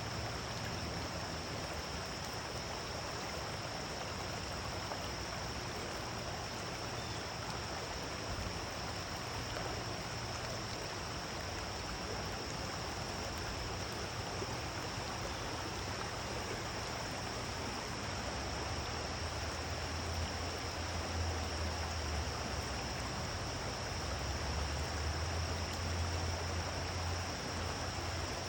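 Waterfall water rushing and splashing steadily, an even continuous noise.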